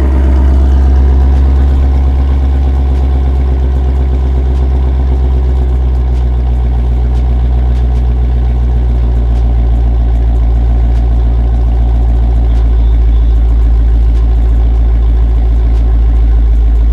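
Ford Shelby GT350's 5.2-litre flat-plane-crank V8 idling steadily and loud through a newly fitted Corsa Double Helix X-pipe with the resonator deleted.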